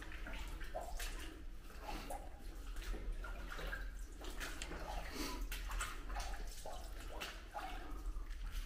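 Water dripping and splashing in a derelict building: irregular drips, several a second, over a steady low hum.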